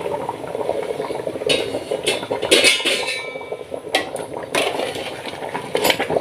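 Hot water poured into a metal pot of rice, chicken and potatoes while a steel ladle stirs it, the ladle clinking against the pot several times over a steady wash of liquid noise.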